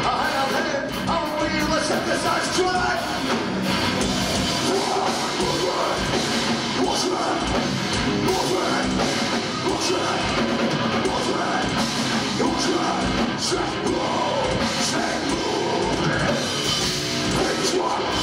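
A nu-metal band playing live: distorted guitars, bass and a pounding drum kit, with a singer yelling and singing into the microphone. It is heard from the audience through a camcorder's microphone.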